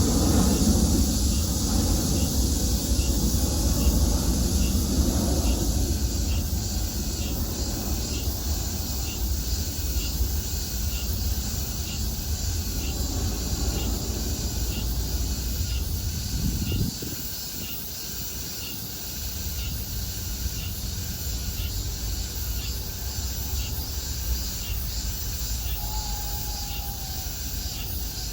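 A low rumble of a passing vehicle fades off and drops away sharply about 17 seconds in. Under it an insect chirps steadily, about one chirp every 0.7 seconds.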